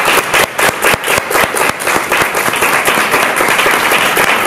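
Audience applauding, loud and sustained, with single claps standing out in the first couple of seconds before it fills in.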